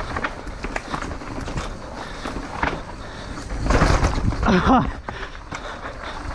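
Downhill mountain bike rolling over a rough trail: tires on dirt and rock, with the bike and chain rattling and clattering and wind on the microphone. The noise swells a little before the midpoint, and a brief wavering pitched sound comes with it.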